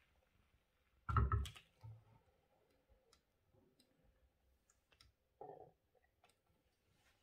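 Cast-iron weight plates stacked on a metal shaft, handled by their rims: a quick cluster of clunks and clicks about a second in, a shorter knock near five and a half seconds, and faint ticks between.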